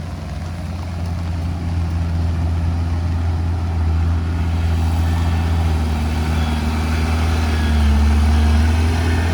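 Heavy diesel engine of earth-moving machinery running steadily, with a deep even note that grows gradually louder.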